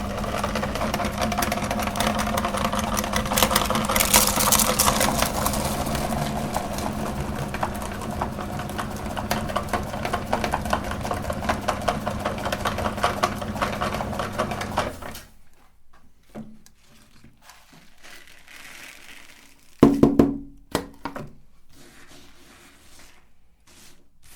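Electric meat grinder running with a steady motor hum and fine crackling as chocolate is fed through. It shuts off suddenly about 15 seconds in, and a few knocks follow, the loudest about 20 seconds in.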